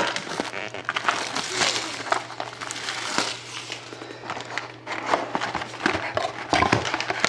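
Plastic wrapping and cardboard crinkling and rustling as a sealed box of trading cards is handled and opened, with many small clicks and crackles.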